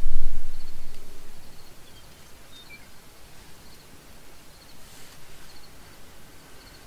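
A low rumble fades away over the first two seconds. Then there is quiet open-country ambience with faint, short, high chirps repeating about once a second, and a few brief gliding bird-like chirps.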